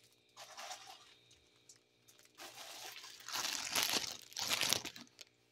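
Plastic packaging crinkling and rustling as it is handled, in several bursts, the longest from about three seconds in to about five seconds in.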